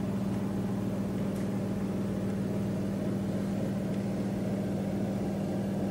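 Steady low mechanical hum with one strong, unchanging tone, like a running kitchen appliance.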